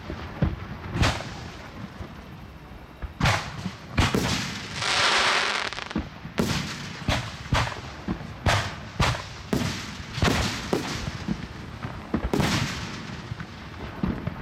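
Aerial fireworks launching and bursting, a string of sharp bangs. They come sparsely at first, then about two a second from about six seconds in, with a hiss lasting about a second and a half just before that.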